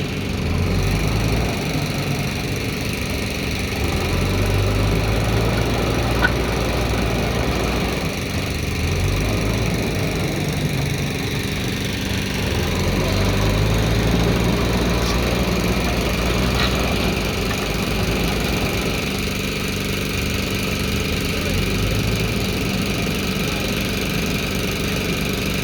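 Diesel engine of a JCB backhoe loader running at work, its speed rising and falling several times as the machine is loaded and eased off.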